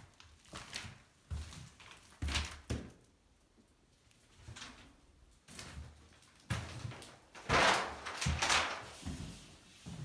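Irregular soft thuds and scuffs of someone walking through bare, unfurnished rooms while handling a phone, with a louder rustling scrape about seven and a half seconds in.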